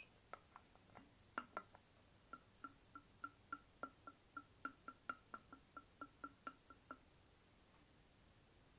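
Liquid glugging in a metal drinking bottle as someone drinks from it. After a few scattered clicks comes an even run of short pitched glugs, about four a second, which stops about seven seconds in.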